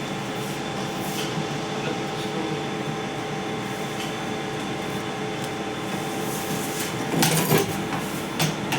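Steady mechanical hum of running lab equipment or ventilation, holding several constant tones. A brief clatter of handling comes about seven seconds in.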